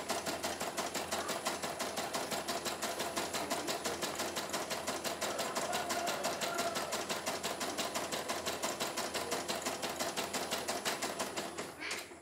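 CNY E900 computerized embroidery machine stitching a design, its needle running at a fast, even clatter while the hoop steps the fabric. It stops shortly before the end.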